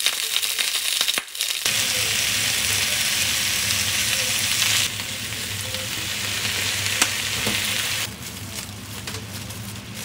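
Food sizzling on a hot pan, a steady crackling hiss that changes abruptly in level a few times.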